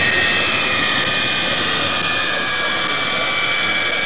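Model Class 66 (EMD JT42CWR) diesel locomotive running under LokSound decoder sound. The simulated diesel engine plays through the model's small speaker as a steady drone with a high whine, mixed with the model's running noise on the track.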